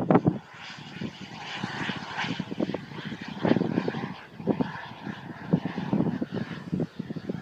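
A radio-controlled model jet's turbine, a Jet Central Rhino in a Comp ARF Typhoon, making a steady rushing whine as the jet flies at a distance, with gusts of wind buffeting the microphone.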